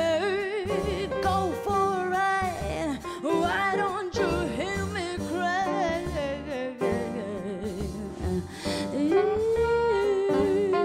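A female singer's blues vocal, with wavering, bending lines and a long held note near the end, over a small jazz combo of piano, upright double bass and drums.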